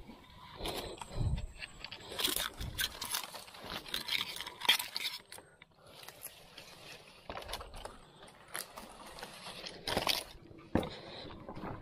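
Irregular scraping, rustling and knocking as a small wooden boat is pushed by hand through nipa palm stems and fronds, the hull and leaves brushing and bumping against the stems, with sharper knocks about five seconds in and near ten seconds.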